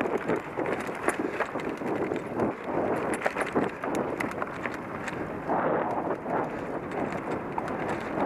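Mountain bike rattling and clattering over a rocky dirt trail, picked up on a bike-mounted action camera: a constant jolting rattle with many small knocks from the tyres and frame hitting stones.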